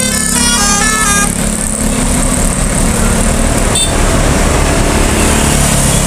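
A bus's multi-tone 'telolet' horn playing a quick stepped tune that stops about a second in, then engine noise and motorcycles passing close by.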